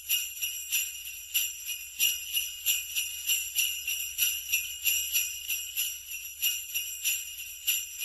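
Sleigh bells jingling, shaken in a steady rhythm of about three shakes a second.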